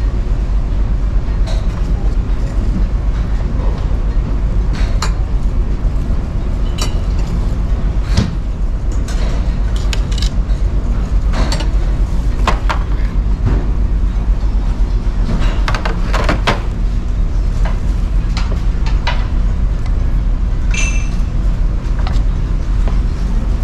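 Steady low drone of a car ferry's engines and machinery, with scattered short clicks and clinks of objects being handled, one ringing a little near the end.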